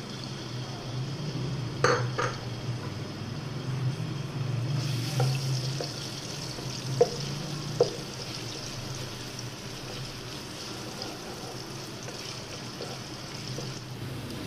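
Minced garlic frying in oil in a nonstick wok: a steady sizzle that grows louder about five seconds in. A slotted spatula stirs it, knocking against the pan several times.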